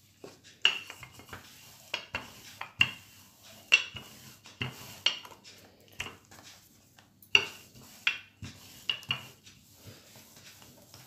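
Wooden rolling pin with handles rolling dough thin on a wooden board, with about a dozen sharp, irregular clacks as it is pushed back and forth.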